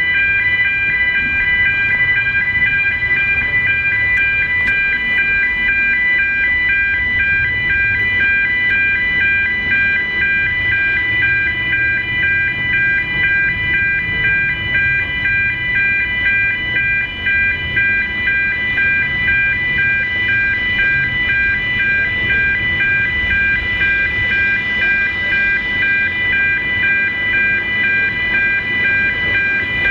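Level-crossing audible warning alarm sounding continuously, a rapidly pulsing electronic tone, with a low rumble beneath it.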